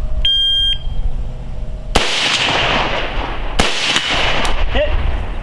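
A shot timer beeps once. About two seconds later an AR-style rifle fires, and the shot echoes across the range. A second rifle shot follows about a second and a half later.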